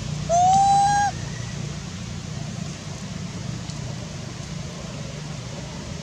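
A young macaque gives one loud crying call about half a second in, a tone that rises briefly and then holds for nearly a second. A steady low hum runs in the background.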